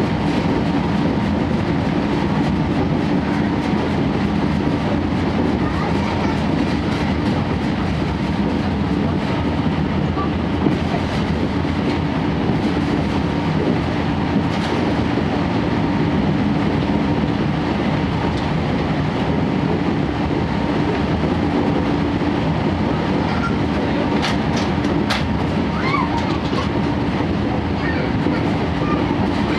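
Steady running noise inside a 12-series passenger coach: wheels on the rails with a clickety-clack over the joints, under the constant hum of the SuHaFu 12 car's diesel generator engine. A few sharp clicks sound about 24 seconds in.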